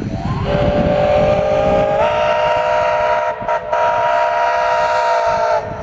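Steam locomotive's chime whistle sounding one long blast of about five seconds, several notes at once. Its pitch steps up a little about two seconds in, and it cuts off near the end.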